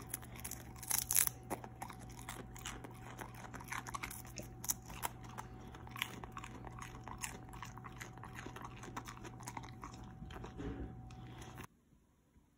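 Husky biting and chewing a crisp raw vegetable stalk, with loud crunches about a second in followed by smaller crunching and chewing. The sound cuts off abruptly near the end.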